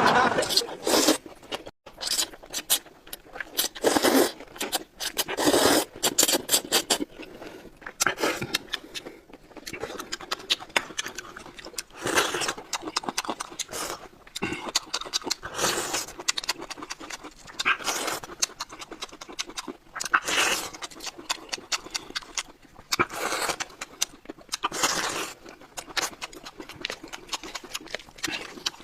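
Noodles being slurped and chewed: irregular wet mouth clicks and smacking sounds, with short louder slurps every few seconds.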